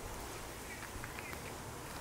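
Quiet outdoor background: a steady airy hiss, with a few faint, short high chirps about a second in.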